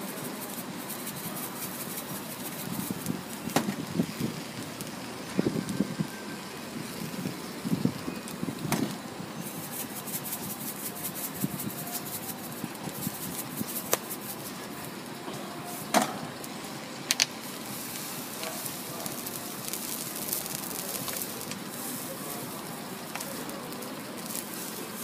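Batter and egg sizzling on a flat iron street-food griddle, with sharp clicks and taps scattered through it as a metal spatula and a metal seasoning shaker knock against the griddle.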